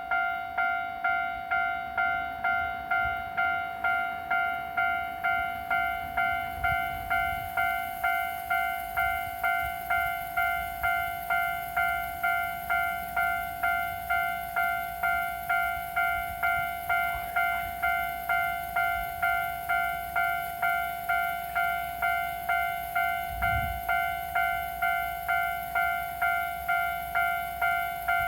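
Japanese railway level-crossing warning bell ringing: a bright electronic clang struck about twice a second, each strike decaying quickly, repeating without a break.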